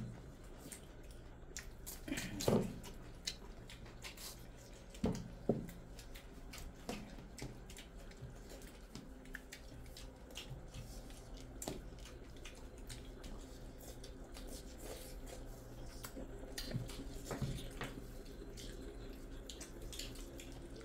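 Close-up eating by hand: fingers squishing rice and curry on steel plates, wet chewing and lip smacking as small scattered clicks, with a few louder mouth noises about two and five seconds in, over a low steady hum.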